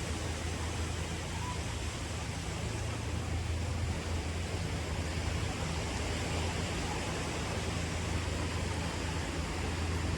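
Steady rushing noise of wind and water while under sail on a paraw outrigger sailboat, with a constant low hum underneath.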